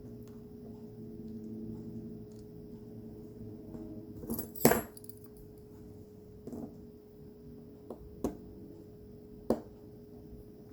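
Small sharp clicks and taps of a little action camera's plastic housing and small parts being handled at a workbench: one louder clack a little before halfway, then three or four single clicks spread out after it. A faint steady hum runs underneath.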